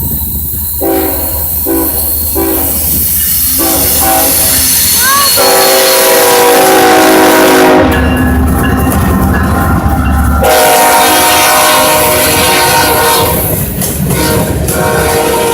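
BNSF diesel locomotive's multi-chime air horn sounding a horn show. It gives several short blasts, then long held chords. The horn breaks off for a couple of seconds about eight seconds in, while a loud low rumble from the passing train comes up. It then sounds again.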